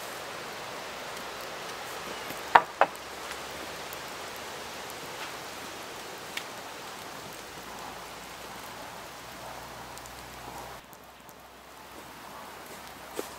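Campfire burning with a steady hiss and crackle, and two sharp loud pops about two and a half seconds in.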